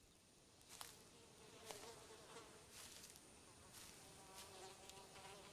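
Faint buzzing of flies with a quiet outdoor background, a few soft ticks.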